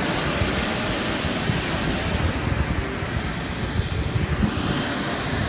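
Steady high-pitched turbine whine over a rushing noise from a parked Boeing 737-700 airliner on the apron, briefly fainter about three seconds in.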